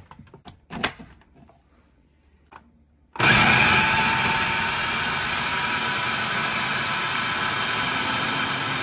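Electric food chopper: a few handling clicks and knocks, then about three seconds in the motor starts and runs steadily with a high whine, grinding boiled chicken and chana dal.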